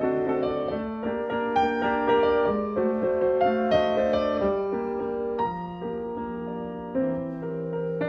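Background piano music: a slow, soft melody over held chords.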